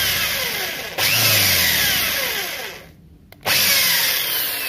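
Electric hand drill with a 6 mm bit drilling out a die-cast toy car's metal rivet, run in short pulls of the trigger. It is triggered again about a second in, winds down and stops shortly before three seconds, then starts again and winds down near the end.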